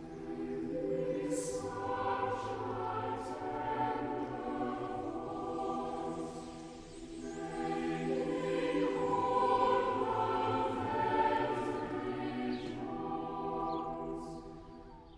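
A choir singing slow, sustained chords in a sacred, classical style. The singing swells, dips about seven seconds in, rises again, and fades near the end.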